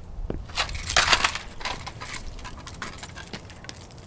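A half-wrecked alarm clock being smashed and crunched against the ground: a cluster of cracking, crunching hits about a second in, then smaller clicks and rattles as loose broken parts knock together.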